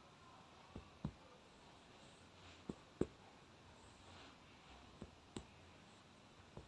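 Soft, faint taps coming in pairs about every two seconds, the loudest about three seconds in: a hand patting (percussion) on a patient's back during chest physiotherapy to loosen phlegm.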